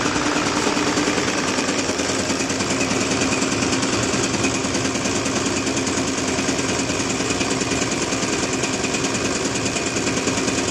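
Denso inline six-cylinder diesel injection pump for a Hino HO7D engine, driven on a pump test bench: a steady, loud, fast mechanical rattle over a constant hum, the pump delivering fuel while its delivery and cut-off are being checked.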